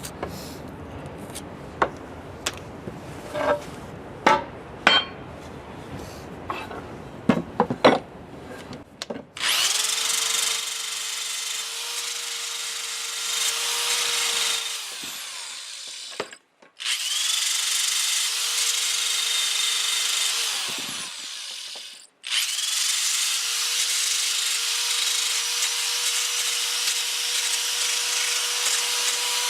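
Several sharp knocks and clicks from the wooden handle being handled, then an electric sander runs three times with a steady hum and a high whine, stopping twice briefly. It is taking down the wooden adze handle where it sticks in the head's eye.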